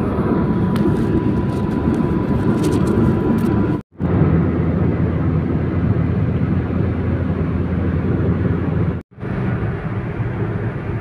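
Steady road and wind rumble inside a car cruising at highway speed. The rumble cuts out for an instant twice, about four seconds in and about nine seconds in.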